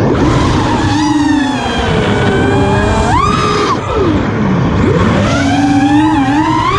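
FPV quadcopter's brushless motors and propellers whining, their pitch sweeping up and down with the throttle, climbing sharply about three seconds in and dropping low around four seconds before rising again. Wind buffets the microphone underneath.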